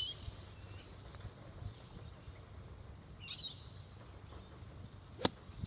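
A golf club striking the sand in a bunker shot: one short, sharp hit about five seconds in. Birds chirp briefly at the start and again about three seconds in.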